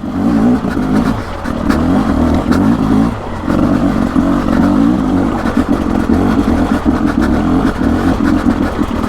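Single-cylinder two-stroke engine of a 2024 Beta RR 300 enduro motorcycle running under throttle on a dirt trail, its note easing off briefly about one and three seconds in, with light knocks scattered through.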